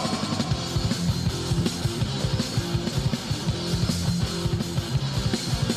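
Instrumental passage of a hardcore punk song: electric guitar, bass and a drum kit played with rapid, dense drum hits, no vocals.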